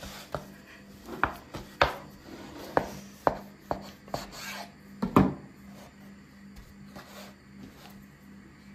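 Knife chopping on a wooden board: about nine sharp, irregularly spaced knocks with some rubbing between them, the loudest about five seconds in.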